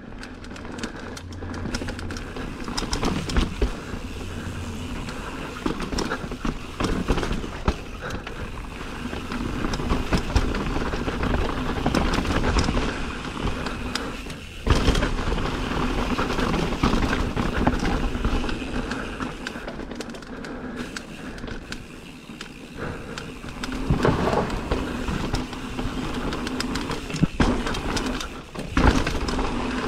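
Mountain bike riding down a rough downhill trail: tyres rolling over rocks and the bike rattling, with many sharp knocks and clatters as it hits bumps.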